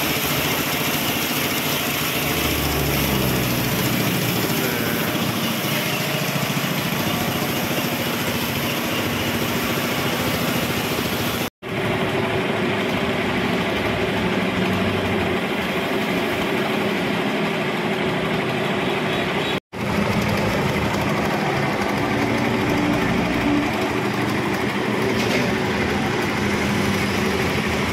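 Homemade carpet spin dryer made from a used plastic barrel, its motor running and the drum spinning at speed with a steady whirring hum. The sound drops out briefly twice.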